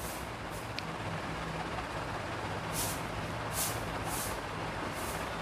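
Steady background noise with a faint low hum and a few short hissy puffs, no speech.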